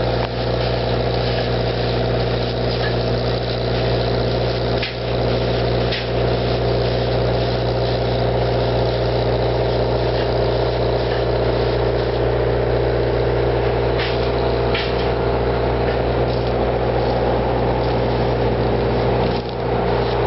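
Engine idling steadily, with a few faint clicks and knocks over it.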